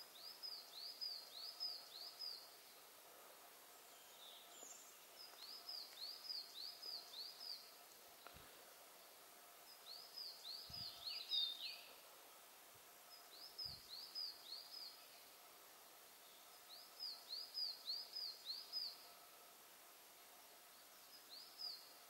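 A small songbird singing a repeated phrase of four or five high, arched notes, the phrase coming again about every three to four seconds.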